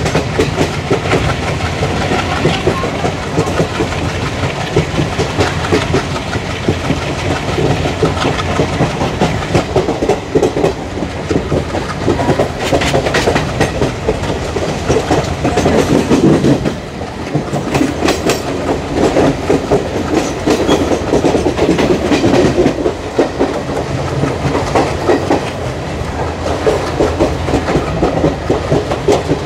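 ICF passenger coach running along the track, its wheels clattering over rail joints over a steady rumble.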